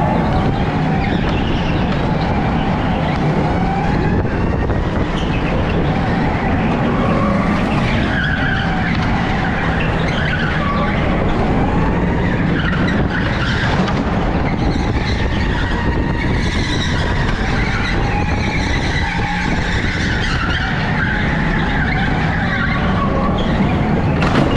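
Electric go-kart running at speed, heard from on board: a steady rumble with the tyres squealing and skidding through the turns.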